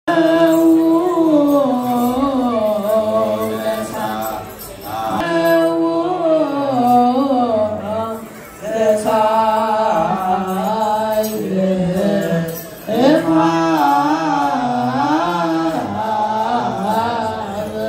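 Eritrean Orthodox Tewahedo deacons chanting wereb, a Ge'ez hymn, in long phrases that rise and fall in pitch. The chant pauses briefly about every four seconds.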